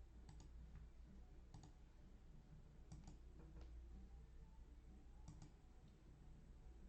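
A handful of faint, sharp clicks, several in quick pairs, over a low steady hum and room tone.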